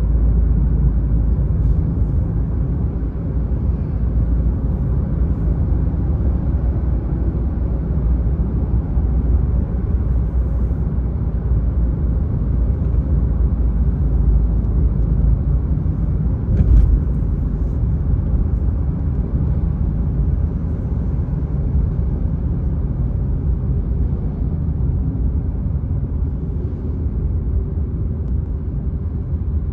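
A car's steady low road rumble while driving, with one brief thump about seventeen seconds in.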